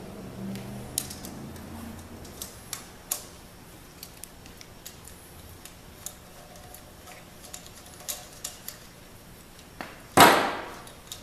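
Scattered metallic clicks and taps of a hand wrench on the adjusting nuts of big-block Chevy roller rocker arms, as the valve train is set to zero lash and preload. About ten seconds in comes one loud knock with a short ring-out.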